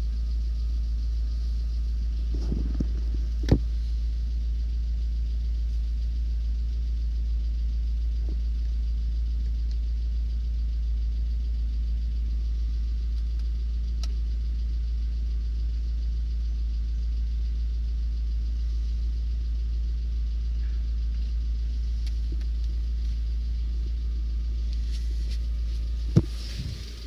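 Lada Vesta SW Cross 1.6-litre 106 hp engine idling with a steady low drone, recorded for a knocking noise in the engine. A few single sharp clicks stand out, and the sound drops in level about a second before the end.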